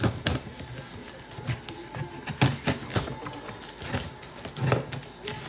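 Mail package being handled and opened by hand: irregular clicks, taps and crinkles of packaging, with a few louder knocks.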